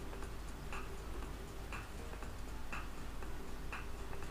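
Clock ticking at an even pace, a stronger tick about once a second with a fainter tick between, marking the pause given to think before the quiz answer.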